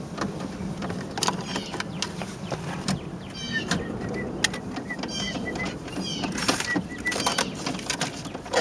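Irregular clicks, knocks and light scraping as hands fit a car's factory radio unit and its metal mounting bracket back into the dashboard.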